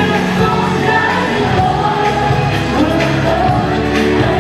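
Live pop band playing, with a woman singing lead through a handheld microphone.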